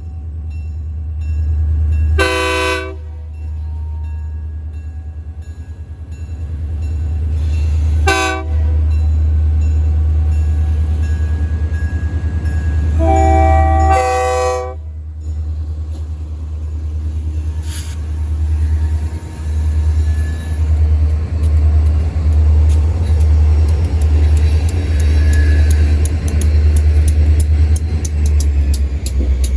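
Air horn of an EMD GP35 diesel locomotive sounding four blasts: two short ones several seconds apart, then two longer ones close together. Underneath is a steady low rumble that, from about two-thirds of the way through, pulses in a regular rhythm.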